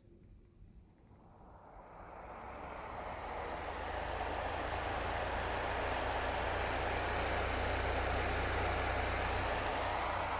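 A homemade battery-powered fan with Coca-Cola can blades spinning up. Its whooshing noise builds over about the first four seconds, then runs steady over a low hum.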